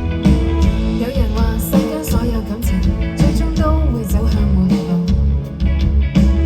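A band playing live: guitar, bass and drums, with a voice singing over it.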